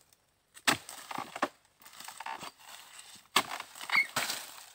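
Oil palm harvesting chisel (dodos) on a long pole jabbed into the fibrous stalks at the base of a low oil palm. There are two sharp chopping strikes, about a second in and again at about three and a half seconds. Each is followed by crackling and rustling of the stalk and palm fronds.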